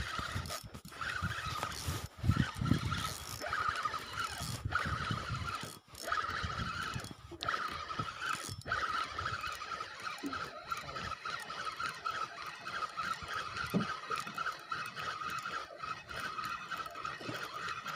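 Fishing reel being cranked steadily, giving a continuous high whine while a fish is brought in on a bent rod. Wind buffets the microphone for the first several seconds.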